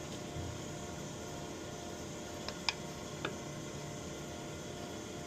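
Steady hum of running machinery with a faint hiss, broken by three light clicks between about two and a half and three and a half seconds in, as parts of the pump coupling are handled.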